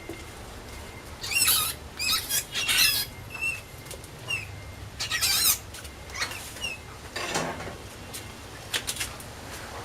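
Mouse squeaking: several bursts of high-pitched, warbling squeals in the first half, with short chirps between and fainter squeaks toward the end.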